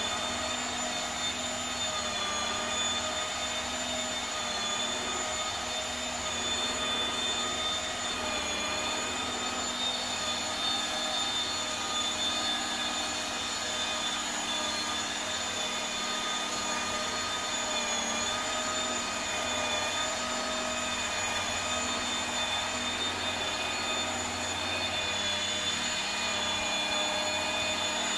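Electric motor running with a steady high whine, its pitch wavering slightly now and then.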